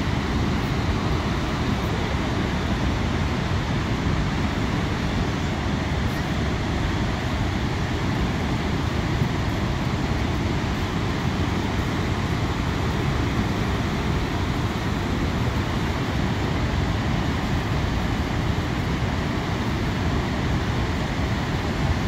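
Steady, deep rushing of Niagara's Horseshoe Falls, a huge volume of water plunging over the brink into the mist below.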